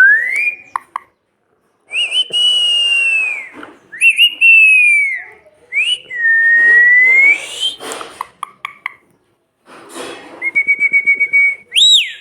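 Pet parrot whistling: a series of long, clear whistled notes that glide up and down, with short pauses between them, then a quick run of short repeated notes near the end.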